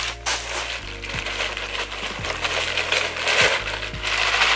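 Plastic packaging crinkling and rustling as hands dig through a glossy plastic mailer bag and pull out wrapped items, with irregular crackles throughout.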